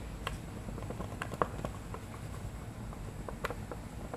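Cotton bud rubbing sticker residue off a thin clear plastic container, giving irregular light clicks and taps.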